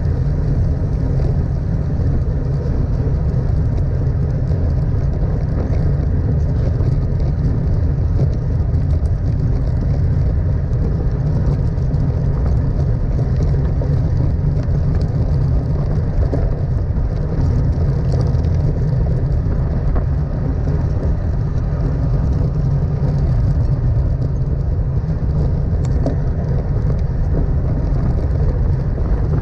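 Wind rushing over the microphone of a bike-mounted GoPro on a road bike moving at race speed: a steady, loud low rumble, with tyre and road noise underneath.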